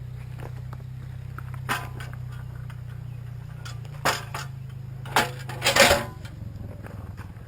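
A few sharp clinks and clatters of hard objects knocking together, one about two seconds in and a cluster between four and six seconds, over a steady low hum.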